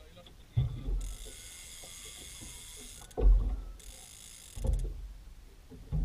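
Fishing reel being wound, a ratcheting whir in two spells: about two seconds, then about one second. Four dull thumps come in between.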